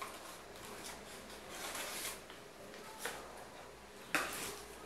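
Small cardboard box and its folded paper manual being handled: soft rustling with a few light clicks, and a sharper scrape about four seconds in.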